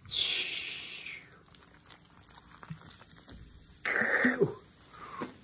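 Cola being poured into a cup of ice, with a fizzing hiss that fades away over about a second. About four seconds in, a person makes a short vocal sound.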